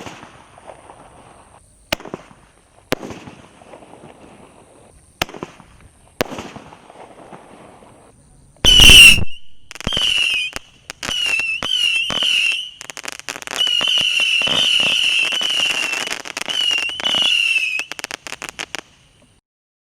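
Garden fireworks: scattered sharp bangs with crackling, then a very loud bang about nine seconds in, followed by a high, wavering whistle over dense crackle that cuts off near the end.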